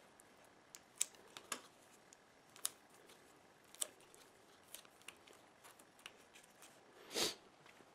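Faint scattered clicks and crinkles of tape being wrapped around the end of braided wire sleeving by hand, with a short, louder rasp near the end.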